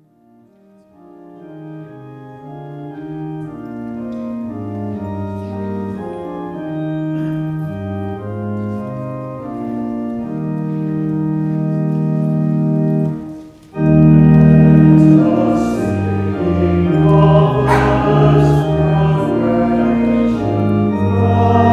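Pipe organ playing a hymn, swelling in from quiet over the first few seconds. After a brief break about 13 seconds in, it comes back louder and a congregation sings along with it.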